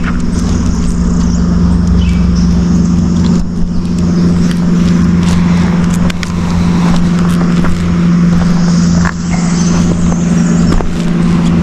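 A steady low hum, like a running motor, holding one pitch throughout, with scattered light clicks and rustles.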